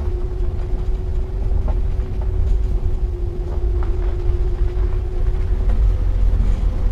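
2009 Nissan Altima Hybrid driving over a gravel dirt road: a steady low rumble from the tyres and road, with a constant hum and a few faint clicks of stones and bumps.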